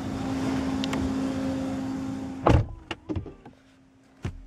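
Car door pulled shut with one loud thud about two and a half seconds in, after which the outside noise drops away. A few lighter clicks and knocks follow as the door settles, and there is one more click near the end.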